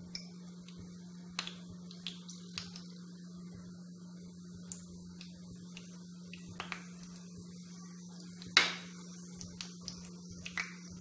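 Cumin seeds popping in hot oil in a small pan, sharp pops every second or two, the loudest about eight and a half seconds in, over a steady low hum.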